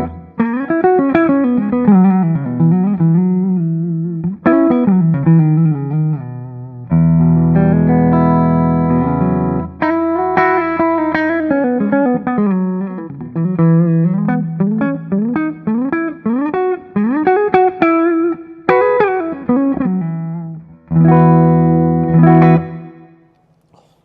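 Gibson Les Paul Special Double Cut electric guitar on its neck P-90 pickup, played clean through a Soldano Astro 20 valve amp with a touch of reverb. Ringing chords alternate with single-note melodic lines with string bends and vibrato. A last chord is damped shortly before the end.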